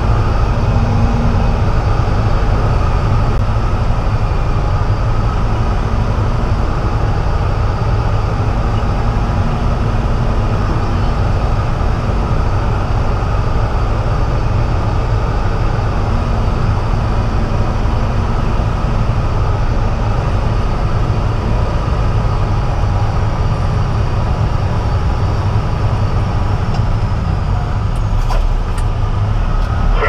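Steady, low drone of a Peterbilt semi-truck's diesel engine, heard from inside the cab as the truck drives slowly.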